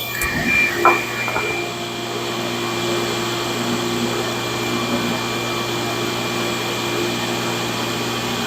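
Shop dust collector or vacuum running with a steady whir, with a short knock about a second in.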